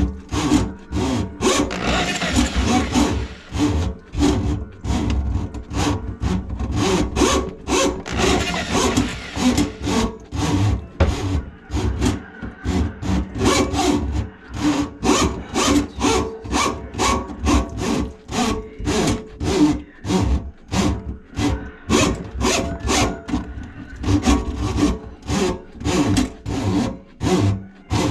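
Handheld power drum auger (drain snake) running, its motor humming while the cable turns and rattles in the drum and drain line with uneven clacks about two a second, as it works through a grease clog in a kitchen sink drain.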